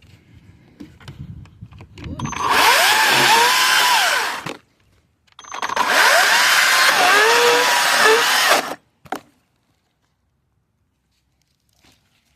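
Greenworks 60V 16-inch cordless electric chainsaw run twice, once for about two seconds and once for about three, its motor and chain whine rising and falling in pitch. A short sharp sound follows just after the second run.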